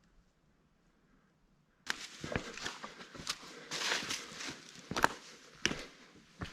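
Near silence for about two seconds, then footsteps crunching and rustling through dry fallen leaves, with frequent sharp clicks.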